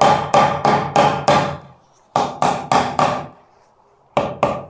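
Mallet knocking an aerated-concrete block down into its mortar bed to bring it level: a run of about five quick knocks, a pause, four more, then two near the end.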